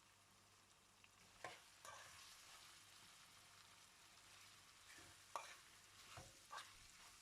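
Faint sizzle of chicken frying in a spiced yoghurt masala in a pan, with a few scrapes and knocks of a spatula stirring it.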